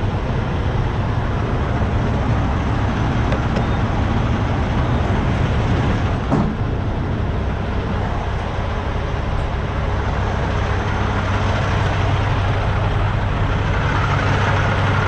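Steady low hum of an idling diesel semi-truck engine over a continuous rushing noise, with a single knock about six seconds in.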